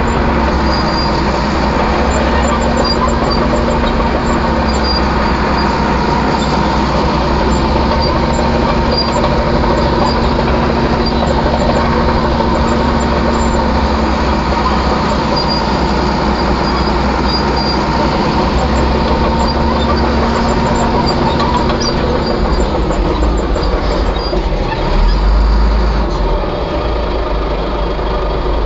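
Heavy diesel engine running steadily with an even drone. Near the end its note drops, followed by a brief louder surge.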